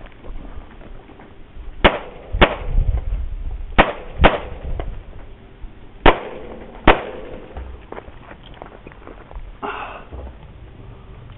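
Six pistol shots fired in three quick pairs, two shots per target.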